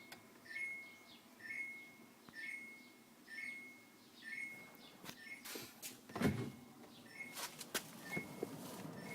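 Samsung RB29FERNCSS refrigerator's alarm beeper sounding a short high beep about once a second, the fault alarm of a fridge whose inverter compressor will not start. A few knocks and a thump of handling partway through, with the beeps fainter near the end.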